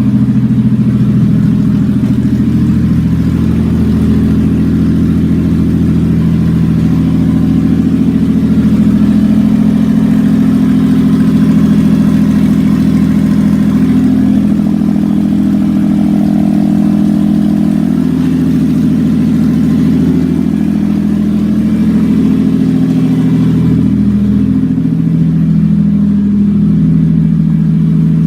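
1997 Toyota Avalon's 3.0-litre V6 idling loud and steady through open exhaust manifolds with no exhaust pipes fitted, still cold and running at a raised warm-up idle.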